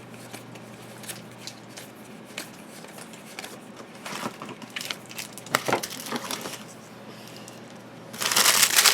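Plastic wrapper of a football trading-card pack crinkling as it is handled, with scattered crinkles and clicks, then a louder stretch of crinkling near the end.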